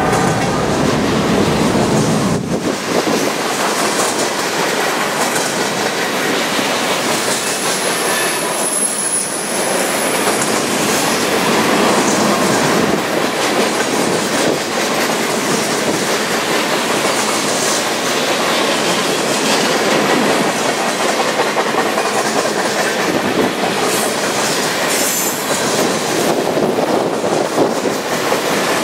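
Empty centerbeam flatcars of a freight train rolling past close by, with steady wheel-on-rail clatter, and a brief high wheel squeal about eight seconds in.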